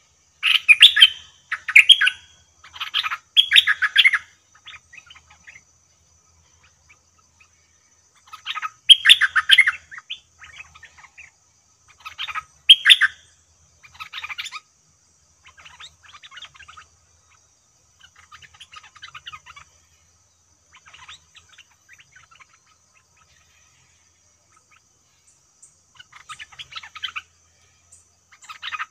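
Stripe-throated bulbul song from a caged decoy bird: loud clusters of bubbly chirps in the first four seconds and again about nine and thirteen seconds in, with fainter bursts of calls between and near the end.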